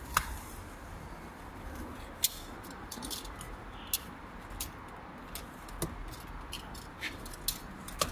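Box cutter slitting the packing tape on a cardboard shipping box: irregular short scrapes and clicks of the blade on tape and cardboard, over a low steady hum.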